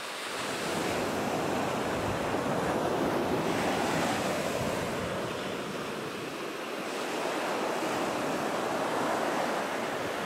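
Ocean surf breaking on a sandy beach: a steady wash of waves that swells up twice and eases off between.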